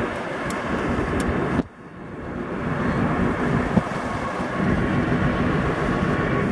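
A car driving along a paved road: steady engine and tyre noise with a low hum. It drops away sharply about a second and a half in, then builds back up.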